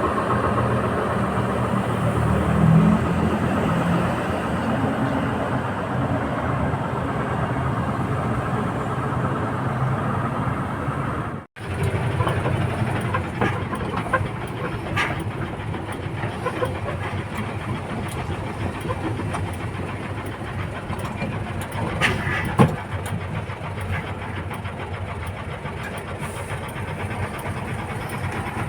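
Backhoe's diesel engine running steadily, with scattered metallic knocks and clanks. The sound cuts out completely for a moment about midway, then the running resumes.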